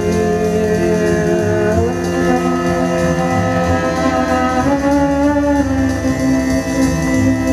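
Live electronic music played on keyboards and electronics: slow, sustained chords that shift about two seconds in and twice more near five seconds.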